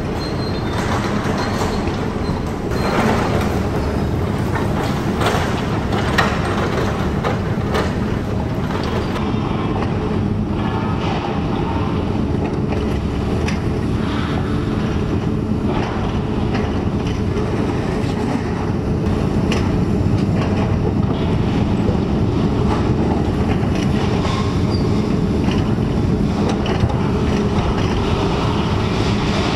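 Demolition site noise: tracked excavators running steadily, with clanking and crashing of metal and debris as the building is pulled down. The clanks are most frequent in the first third.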